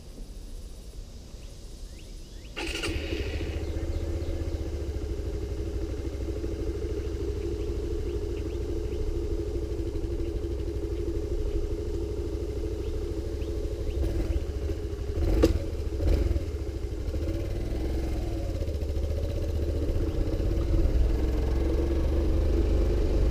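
Motorcycle engine starting about three seconds in with a brief starter whir, then idling steadily. A sharp click comes about halfway through, after which the engine note rises gradually as the bike pulls away.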